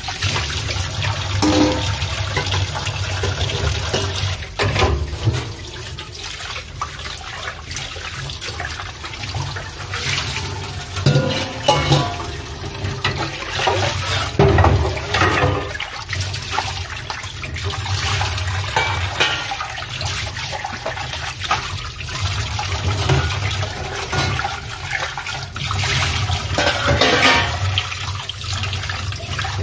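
Tap water running steadily while dog feeding bowls are washed in a sink, with a knock or clatter of the bowls now and then.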